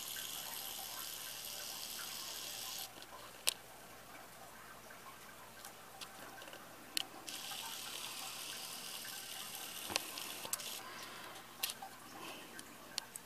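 Blizzard snow and wind making a steady high hiss that starts and stops abruptly twice, with scattered sharp ticks.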